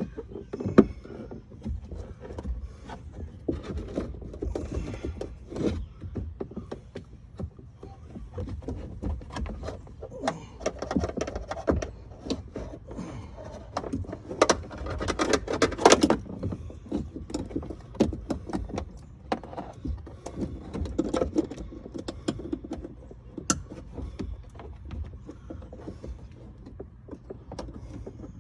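Hands fitting a replacement power liftgate lift arm: scattered clicks, knocks and light rattles of the strut and its fittings being handled and pushed into place, busiest around the middle.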